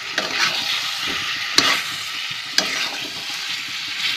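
Chicken and potato curry in ground coriander leaves sizzling in a black kadai while a flat spatula stirs and scrapes through it, with two sharp clicks of the spatula against the pan.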